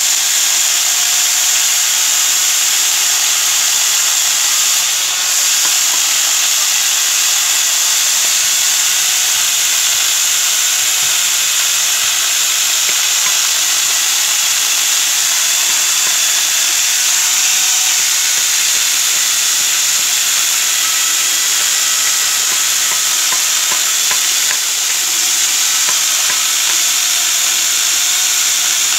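Electric angle grinder fitted with a chainsaw bar-and-chain attachment running under load as its chain cuts through a log: a steady, high-pitched whine and hiss, easing briefly twice.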